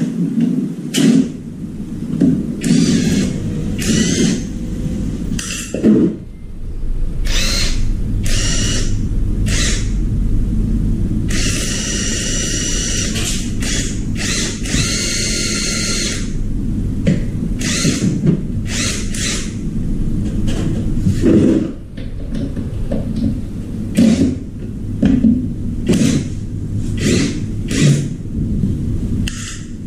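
Handheld power drill run in many short bursts, its motor whining, with a longer run near the middle, over a steady low rumble.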